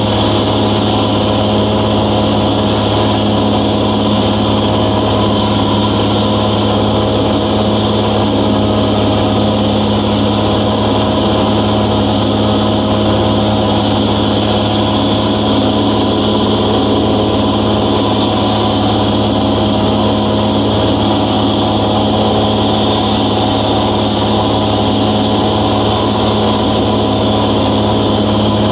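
Steady drone of a 1993 Velocity S-FG's 180 hp piston engine and pusher propeller in flight, heard inside the cabin, holding one even pitch throughout.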